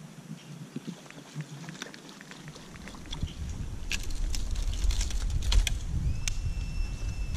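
Clicks and knocks of fishing gear being handled in a kayak while a lure is worked, over a low rumble that starts about two and a half seconds in. A short, steady high tone comes in near the end.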